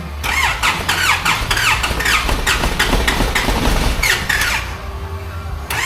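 Nissan ZD30 diesel engine running, a steady low drone under rapid, repeated falling squeaks several times a second. The engine has a holed piston and sounds sad.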